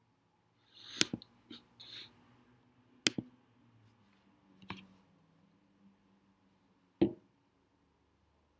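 A few separate sharp clicks and knocks from handling computer equipment at a desk. There are four of them, about a second, three seconds and four and a half seconds in, and a heavier knock about seven seconds in.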